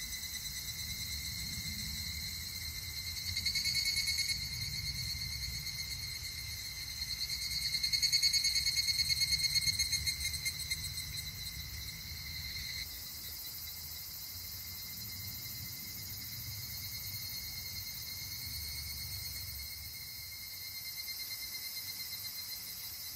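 A chorus of crickets and other insects trilling steadily in high pulsing tones. One trill swells louder around four seconds in and again from about eight to ten seconds in, and one layer of the chorus stops about thirteen seconds in.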